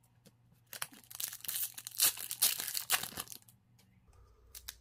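An Upper Deck 2020-21 Series 2 hockey hobby pack's wrapper being torn open and crinkled by hand. The crackling comes in a dense run from about a second in until past three seconds, followed by a few faint clicks of the cards being handled.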